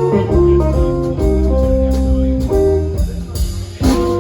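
Live blues band playing in C: guitar notes and held chords over bass and drums, with a few drum hits.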